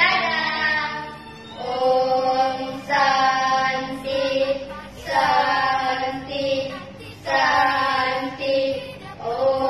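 Two young girls' voices singing together in unison, in about four phrases of long held notes with short breaths between.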